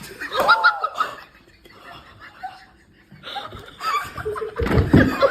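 Laughter: a short burst at the start, then louder laughter from about three seconds in.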